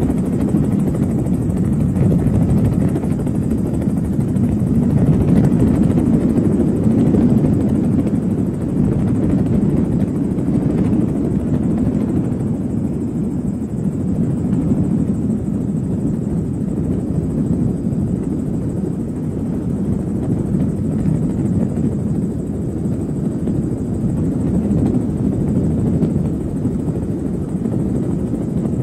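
Helicopter's rotor and engine running steadily, heard from on board as a dense, unbroken low drone.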